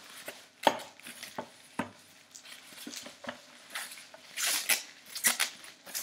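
Plastic packaging rustling and crinkling as it is handled, with a few sharp knocks in the first two seconds and louder crinkling bursts near the end.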